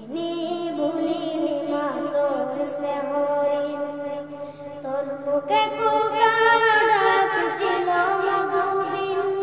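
A boy singing a Bengali nasheed into a handheld microphone, in long, wavering held notes; a new, higher phrase begins about halfway through. A faint steady hum lies beneath the voice.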